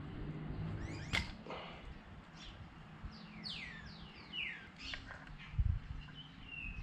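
Birds calling in the background in quick falling chirps, thickest about halfway through, with a short held high note near the end. Under them runs a faint low hum, with a couple of soft bumps from the hub parts being handled.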